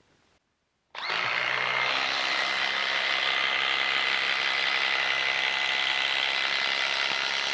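Hilti Nuron 22 V cordless impact driver hammering steadily as it drives a long lag screw into a wooden log, starting about a second in.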